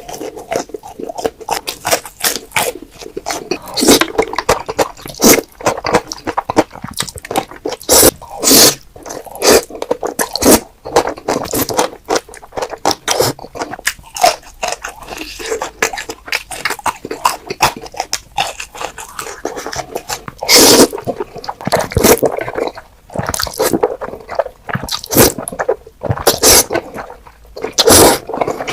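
Close-miked eating of Korean black bean noodles (jjajangmyeon): rapid wet chewing and smacking clicks, with a few longer, louder mouth-noise bursts every several seconds.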